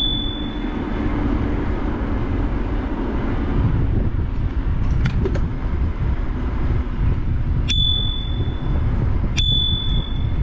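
A bicycle bell dinged twice near the end, about a second and a half apart, each ding ringing out clear and high for about a second; the ring of another ding fades at the start. Under it, a steady low rush of wind on the microphone from riding.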